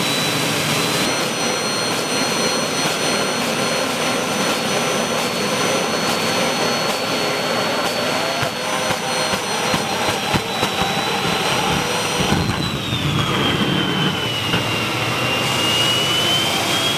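Turbocharger on a homemade gasoline-fired combustor rig running: a steady high whine over a rushing roar of air and combustion. About two-thirds of the way in the whine sags in pitch, then climbs again near the end.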